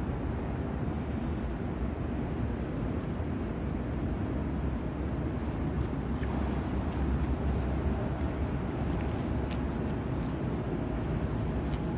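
Steady low rumbling background noise, with faint light clicks in the second half.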